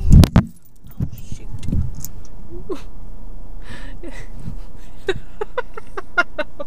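A handheld camera dropped inside a car: a loud knock as it lands, a brief muffled moment, then rubbing and knocking as it is picked up and handled.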